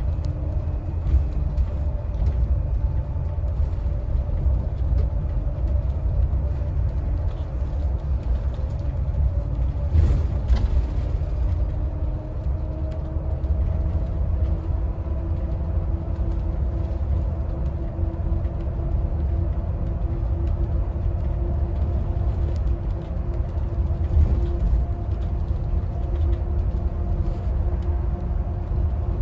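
Inside a highway coach on the move: a steady low engine and road rumble, with an engine whine that climbs slowly in pitch through the second half. There is a brief knock about ten seconds in.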